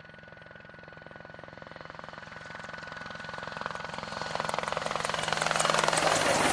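Twin-turbine AH-64D Apache Longbow attack helicopter approaching and flying overhead, its rotor beat and turbine whine growing steadily louder. The pitch drops in the last two seconds as it passes.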